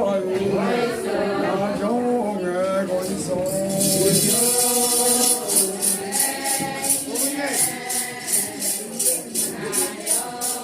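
Ponung chant of the Adi Solung festival: a group of voices singing together, with a shaken metal jingle coming in about three seconds in and keeping a steady beat a couple of times a second.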